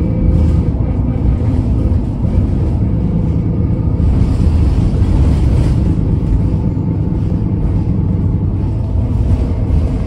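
Cabin sound inside a moving Alexander Dennis Enviro 300 single-deck bus: the engine and drivetrain running with a steady low rumble and road noise, with faint steady tones running through it. The road noise rises briefly about halfway through.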